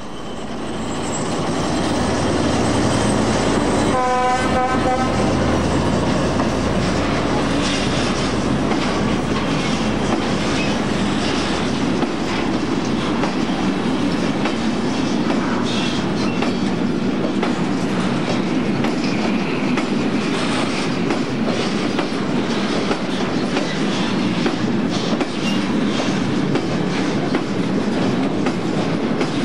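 Freight train of loaded car-carrier wagons rolling past close by: a steady rumble with the clatter of wheels over rail joints, rising in over the first couple of seconds. A short horn blast sounds about four seconds in.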